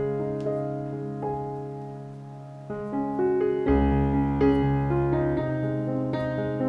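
Slow, calm background piano music with held notes and chords. A deep bass note comes in a little past halfway, and the texture grows fuller from there.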